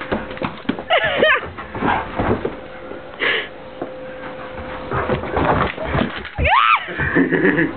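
Rottweiler x German shepherd x Saint Bernard puppy giving three high, sliding whines during rough play, the last rising and then falling, with scuffling and knocks between them.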